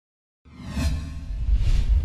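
Intro logo sound effect: two whooshes over a deep bass rumble, starting about half a second in.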